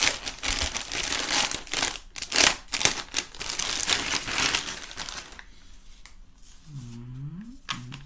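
Thin clear plastic bag crinkling and rustling as it is opened and a mop pad is slid out of it, dense for about five seconds and then quieter.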